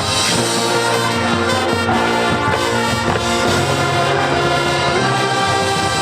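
High school marching band playing its halftime show: brass (trumpets and trombones) holding sustained chords with drums underneath, the chords changing every second or two.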